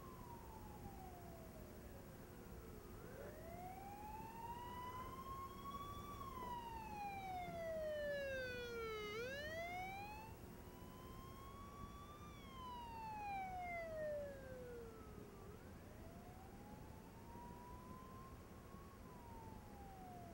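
Faint police siren in a slow wail, its pitch rising for about three seconds and falling for about three, over and over. Around the middle a second siren tone overlaps it, and a steady low hum runs underneath.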